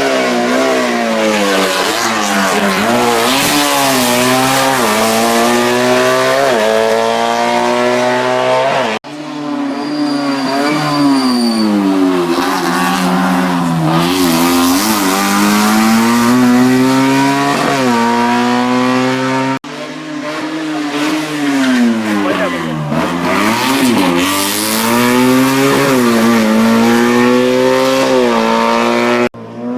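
Hillclimb racing car engines revving hard, the pitch climbing, dropping at gear changes and dipping low when braking for bends, then rising again. Three separate cars are heard in turn, each cut off abruptly as the next begins.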